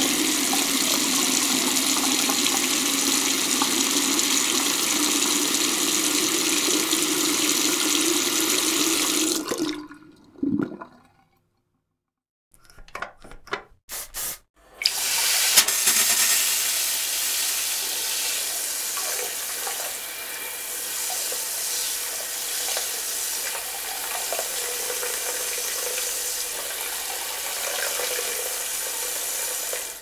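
Water running steadily from a tap for about nine seconds, then shut off. After a pause, a few clicks and rattles, then a toilet flush: a sudden loud rush of water that eases into a steady run of water until the end.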